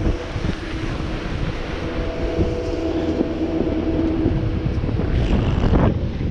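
Steady machinery hum with a few held tones, from the chairlift drive at the top station, fading about four seconds in. Under it, wind buffets the helmet-mounted microphone and a snowboard slides and scrapes over the snow.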